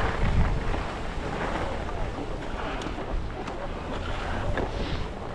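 Wind buffeting a ski headcam's microphone during a downhill run, with the hiss of skis sliding over snow.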